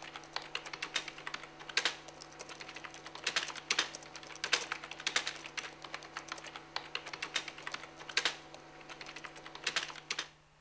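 Fast, irregular typing on a computer keyboard: runs of keystrokes with short pauses between them, stopping near the end.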